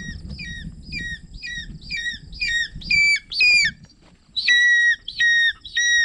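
Changeable hawk-eagle calling: a rapid series of shrill, repeated notes, about two a second, growing louder. After a short break near four seconds come longer, level notes.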